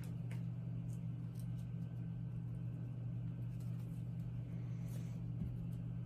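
A steady low hum, with a few faint soft ticks.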